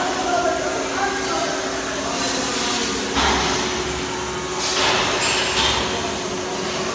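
Steady mechanical hum with two held tones, broken by bursts of rushing hiss about three seconds in and again around five seconds in.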